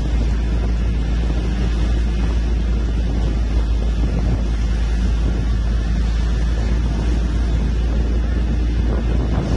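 Moving bus heard from an open side window: a steady deep rumble of engine and road noise, with wind buffeting the microphone.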